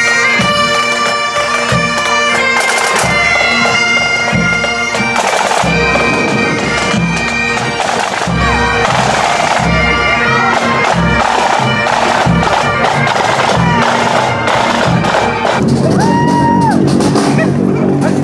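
Pipe band playing as it marches past: bagpipes' steady drones and chanter melody over the strokes of snare and tenor drums. About fifteen seconds in, the music changes to a mummers' string band.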